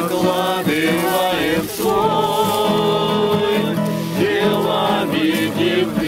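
Several voices singing a religious song to a strummed acoustic guitar, with a long held note about two seconds in.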